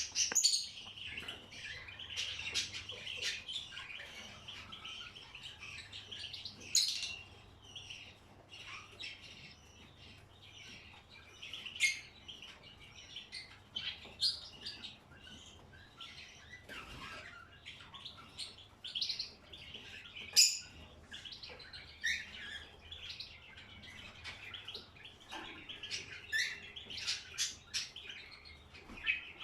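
Many caged pet birds chirping in short, scattered calls that often overlap.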